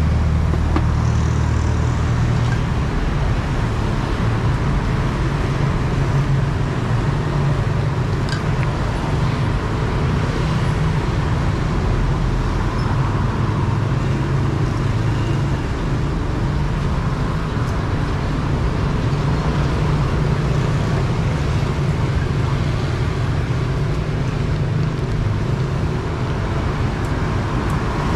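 Steady low hum and rumble of street traffic noise, with no distinct events standing out.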